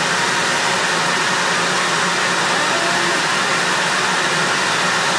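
Large leaf blower running steadily, a loud even rush of air with a faint low hum underneath, blowing a basketball up into the air.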